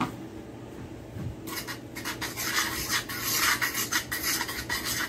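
Dry breading mix of self-rising flour and panko crumbs being stirred in an aluminum baking pan, a gritty scraping and rubbing that starts about a second and a half in and goes on in quick, uneven strokes.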